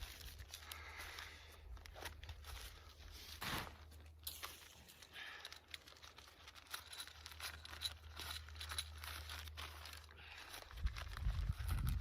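Irregular rustling and crinkling of tent fabric being handled, with a louder low rumble coming in near the end.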